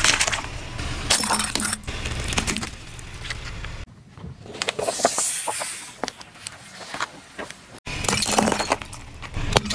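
Car tyre rolling over and crushing objects one after another: soft jelly-like items squashing, a plastic stacking-ring toy cracking, and about eight seconds in a ceramic ornament shattering, its pieces clinking onto the road.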